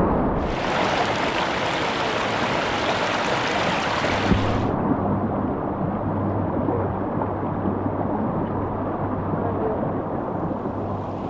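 Rushing whitewater of a river rapid. A bright splashing hiss runs for the first few seconds and cuts off sharply about four and a half seconds in, leaving a duller, lower rush of water.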